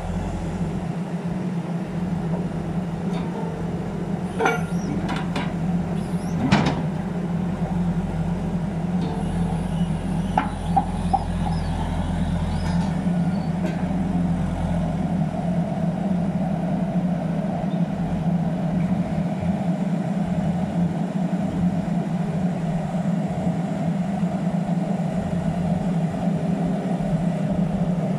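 Kaiser S2-4 walking excavator's diesel engine running steadily while the machine lifts its legs and moves off on its wheels. There are a few sharp metal knocks about four to seven seconds in, and a higher-pitched hum joins about halfway through.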